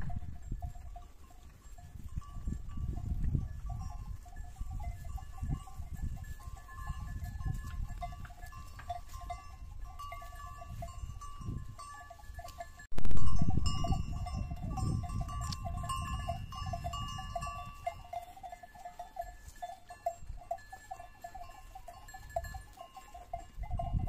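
Flock of sheep grazing, with the bells on the flock ringing steadily, under a low rumble of wind on the microphone that rises suddenly about halfway through.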